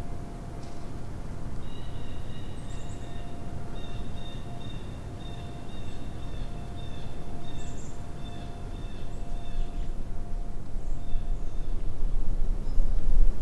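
Quiet woodland ambience: a steady low rumble that swells near the end, with a few brief, faint high bird chirps and faint steady high tones through most of it.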